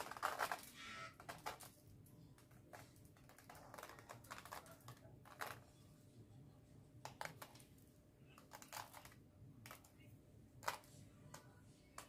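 Faint, irregular light ticking and rustling of chocolate shavings being pressed by hand onto the cream-covered side of a cake, loose flakes dropping onto the baking paper and table.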